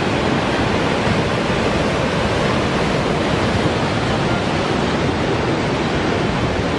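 Heavy surf breaking, a steady even rush of water noise with no distinct separate crashes.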